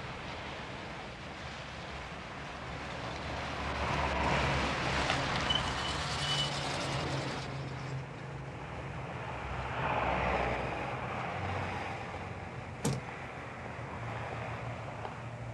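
Small Fiat 126 car, with its rear-mounted air-cooled two-cylinder engine, driving slowly and pulling up: a steady engine hum with road noise that swells twice. There is a single sharp knock near the end.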